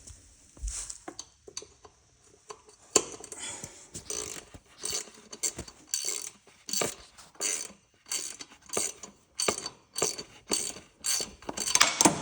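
Socket wrench clicking with repeated short strokes, about two a second, as a fitting on the Honda GX630 engine is turned, with a louder metallic clatter right at the end.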